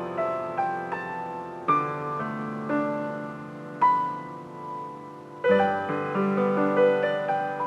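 Solo piano playing a slow, gentle melody over sustained chords, each struck note fading away; fresh chords come in about two, four and five and a half seconds in.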